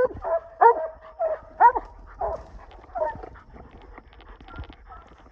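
Coonhounds barking treed at the foot of a tree, the sign that they have bayed their quarry up it. A run of short barks that rise and fall in pitch, close together at first, then thinning out and fading after about three seconds.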